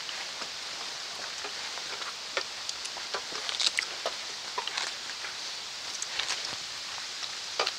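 Footsteps on a rocky dirt trail: irregular scuffs and knocks of boots on stone and grit, over a steady background hiss.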